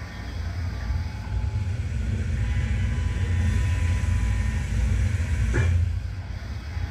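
Running machinery of a robotic machining cell: a steady low hum with faint high whining tones, growing louder over the first few seconds. A brief rising whine comes about five and a half seconds in.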